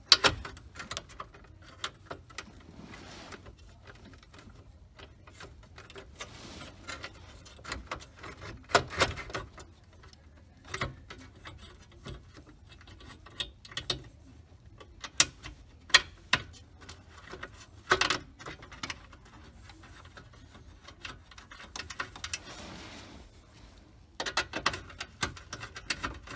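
Irregular clicks, taps and light clatter of hand work on plastic dashboard trim and loose screws, with a denser run of clatter near the end.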